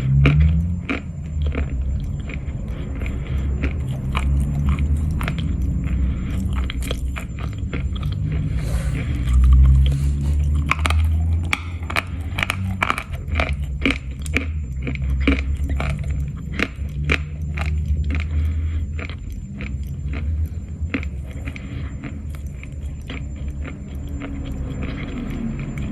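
Dry Khrapovsky chalk being bitten and chewed close to the microphone: a stream of irregular crisp crunches over a low rumble.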